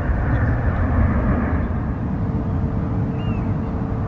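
Jet airliner's engines, a steady deep rumble; about halfway through the higher part of the noise fades and a steady hum tone sets in.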